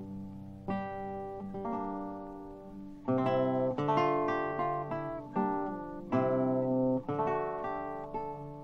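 Solo lute playing slow plucked chords and single notes, each left to ring and fade away, with a quicker cluster of notes about three seconds in.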